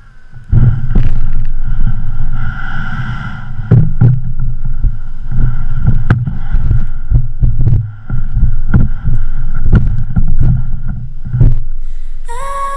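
Wind buffeting an action-camera microphone, with a low rumble and many sharp knocks and thumps as a plastic whitewater kayak is handled and slides over snow. Electronic music comes in near the end.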